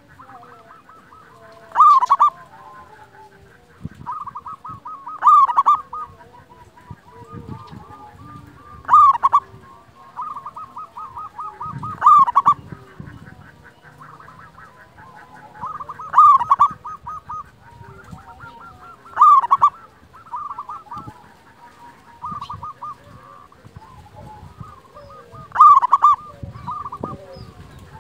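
Zebra dove (local perkutut) cooing: a loud staccato phrase of rapid repeated notes, given about every three to four seconds, eight times, with softer coos in between.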